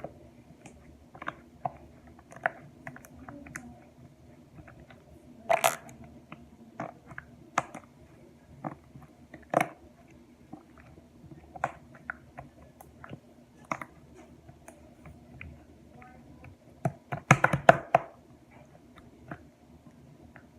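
Slime squished and pulled by hand, giving irregular sticky clicks and pops, with a quick flurry of pops near the end.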